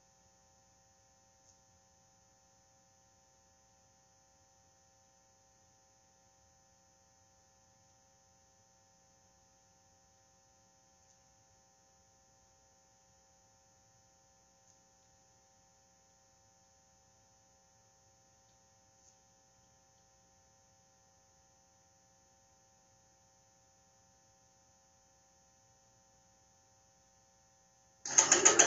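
Near silence with a faint, steady electrical hum and a high whine, with a few faint ticks. Near the end a loud sound cuts in abruptly.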